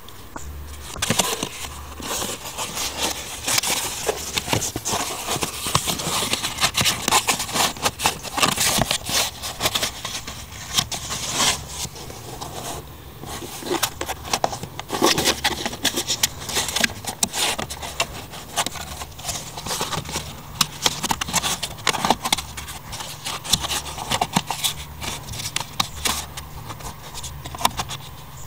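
Plastic trim under a VW Jetta's dashboard being handled: an irregular run of scrapes, rubs and clicks of hard plastic as hands work the panel and its clips.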